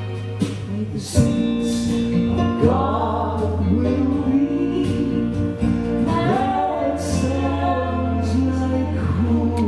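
Gospel song: sung vocal phrases over a steady, sustained instrumental accompaniment.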